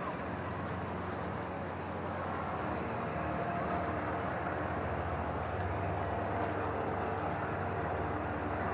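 A motor engine running steadily: a low drone with a higher tone above it that grows a little louder about three seconds in, over a steady wash of outdoor noise.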